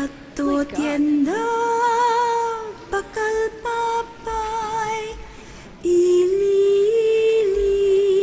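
A high voice singing long held notes with a slight waver, with no accompaniment. The phrases are broken by short pauses, and the longest note starts about six seconds in.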